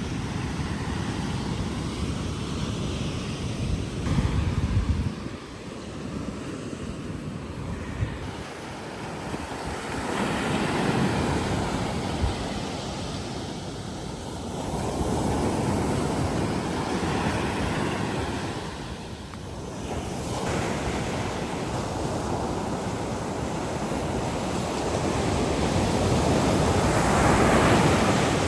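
Atlantic surf breaking on a sandy beach, the wash of the waves swelling and fading every few seconds, with wind buffeting the microphone.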